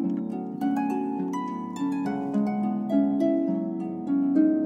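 Background harp music: a flowing melody of plucked notes, a couple a second, over lower held notes.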